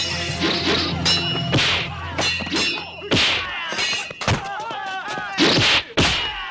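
Martial-arts film fight sound effects: a rapid series of staff and blade strikes, whacks and thuds with metallic clangs, over a low music bed that fades about halfway through. The hardest hits come near the end.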